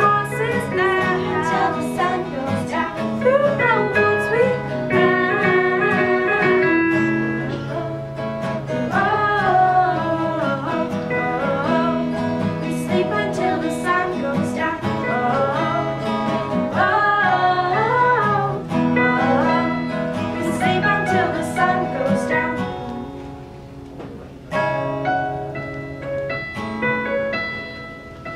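Live acoustic band: two acoustic guitars strummed and a Nord Electro keyboard, with young girls singing the melody. About 23 seconds in the singing stops and the music drops, then a louder instrumental passage led by keyboard chords comes in.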